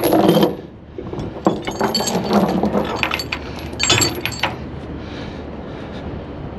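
Rusty steel tie-down chain clanking and rattling as it is handled on a wooden trailer deck and hooked up: a loud clatter at the start, then a run of sharp clinks from about one and a half to four and a half seconds in.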